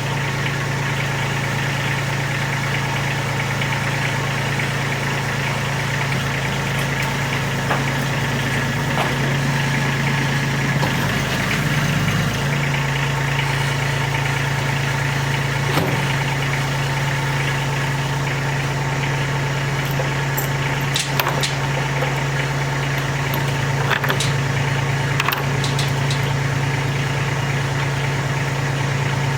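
Tractor engine running steadily, its pitch shifting briefly about twelve seconds in, with a few sharp knocks in the second half.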